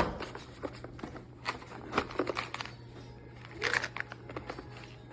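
Rustling and light clicking of objects being handled, irregular and scattered, over a faint steady low hum.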